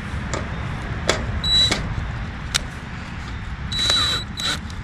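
DeWalt cordless drill running in two short bursts with a high whine, starting screw holes through the back wall of a gutter, with a few sharp clicks and knocks of metal and tool between.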